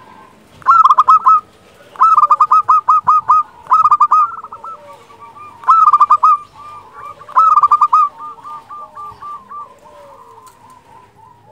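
Zebra dove (perkutut) cooing: five loud bursts of quick, stuttering notes in about seven seconds, followed by a quieter run of similar notes. It is a local perkutut singing freely, with the flute-like voice prized in the bird.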